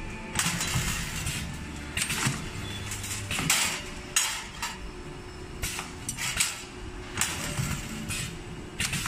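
CNC flat wire forming and welding machine working through a cycle: air-driven clamps and cylinders make a dozen or so short, sharp, irregularly spaced hisses and metallic clinks over a low steady hum, while the bent wire ring is clamped and butt-welded.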